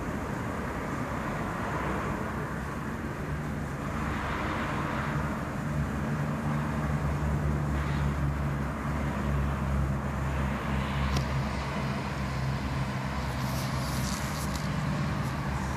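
Steady low hum of a running engine, with road traffic noise around it.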